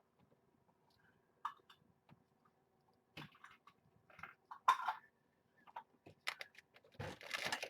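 Scattered clicks, taps and short rustles of cat food and dishes being handled, with a longer, louder rustle near the end.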